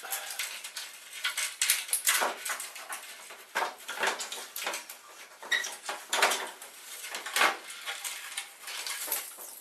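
Plastic parts of a gutted printer clattering and clicking as hands pull and prise components out of its chassis: an irregular run of knocks and rattles.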